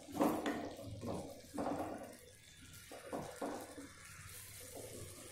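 A spatula stirring tinda (Indian round gourds) through a thick masala gravy in a nonstick kadai: a run of short, irregular stirring strokes, softer in the second half.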